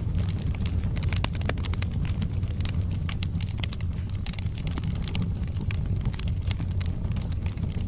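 Wood fire burning in a fireplace: a steady low rumble of the flames, with frequent sharp, irregular crackles and pops from the burning logs.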